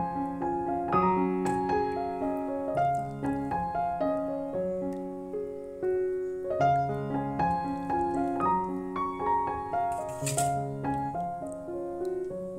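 Background piano music playing a melody over chords, with one short noise about ten seconds in.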